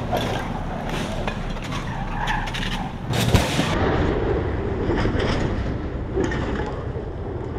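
SUV stunt car tilted up on two wheels, its tyres skidding on tarmac with the engine running, and a sharp loud bang a little over three seconds in.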